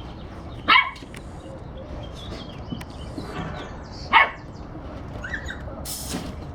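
A puppy gives two short, high yaps, one about a second in and another about four seconds in.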